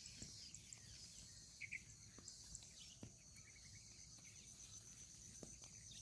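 Faint, steady high-pitched insect chorus from the rice paddy, with a few short bird chirps, one clearer pair near the middle.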